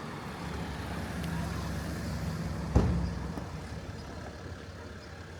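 A motor vehicle passing slowly, its low engine hum swelling and then fading, with one sharp, loud thump about halfway through.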